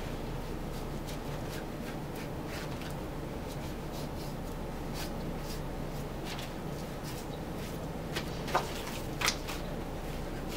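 Soft, scattered strokes of a curved butcher's knife slicing fat away from a beef chuck roll, with the meat handled on a wooden board, over a steady low room hum. Two sharper clicks come near the end.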